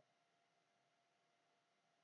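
Near silence: faint background hiss from the recording.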